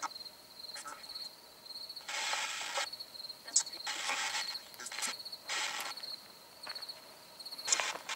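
A cricket chirping steadily in a fast, high pulse, broken by about four bursts of hiss-like static, each about half a second long, from a handheld ghost-box device scanning for answers.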